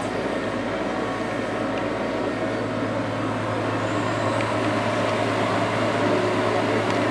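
Kubota U30-5 mini excavator's diesel engine running steadily under load while the arm lifts and swings a bucket of soil, a constant low drone with mechanical clatter.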